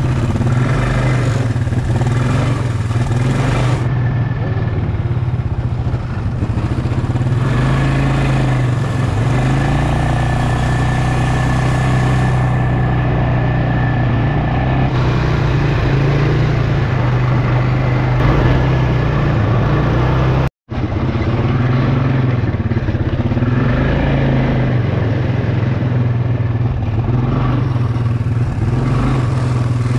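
Quad bike (ATV) engine running steadily under way, heard from the rider's seat over a dirt track, with a split-second dropout about two-thirds of the way through.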